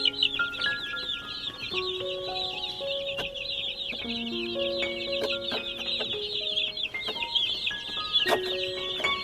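A large brood of baby chicks peeping together: a dense, continuous chorus of high, overlapping, downward-sliding chirps. Quieter background music with held notes plays underneath.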